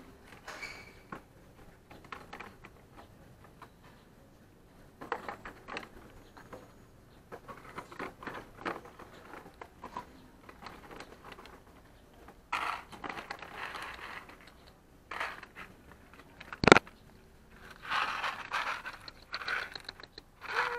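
Intermittent scraping and crinkling from a small plastic tub of dry cat food being handled, with one sharp snap, the loudest sound, a little before the end.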